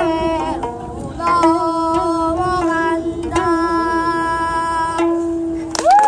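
A girl singing to a gayageum, the Korean twelve-string zither, plucked in accompaniment. The voice holds long notes over the plucked strings. The music ends with a loud last note near the end, and clapping begins.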